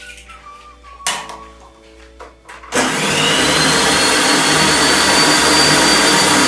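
Electric stand mixer switched on a little under three seconds in. Its motor whine rises briefly, then runs steadily as it beats an egg into creamed butter and sugar.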